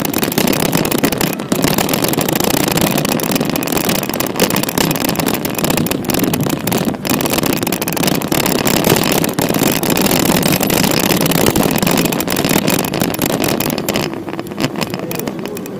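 Rumble, rattle and wind noise on a camera riding on a moving bicycle over stone paving, dense with small knocks and clicks. It eases slightly near the end.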